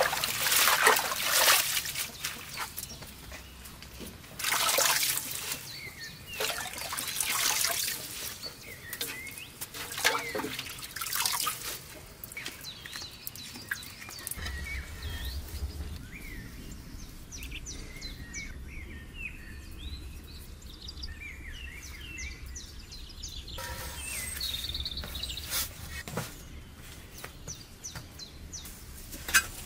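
Water splashing and pouring in bursts, with birds chirping in the background, most clearly in the quieter stretch midway through.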